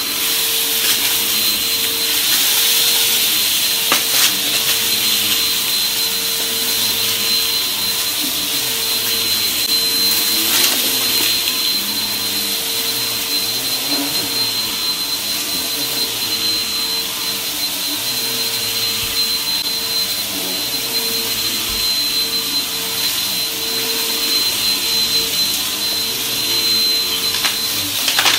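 Upright vacuum cleaner running steadily on a shag rug: a constant high whine over a rushing hiss, with a few sharp ticks along the way.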